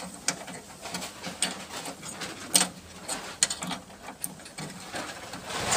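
A thin sheet-metal repair patch cut from an old bonnet, scraping and clicking against a rusted car body panel as it is pressed into place by hand: an irregular series of sharp metallic clicks and short scrapes.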